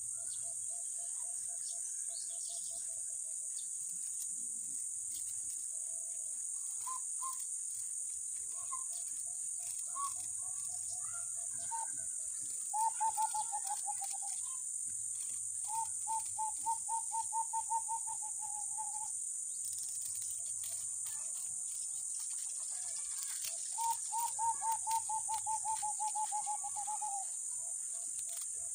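A steady high-pitched drone of insects, with a bird giving several rapid, evenly pulsed trills, each lasting two to three seconds and loudest about halfway through and again near the end.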